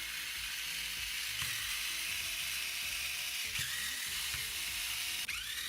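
Light handling and hand-unscrewing of small screws from a cordless screwdriver's plastic housing, over a steady hiss, with two short squeaks, one past the middle and one near the end.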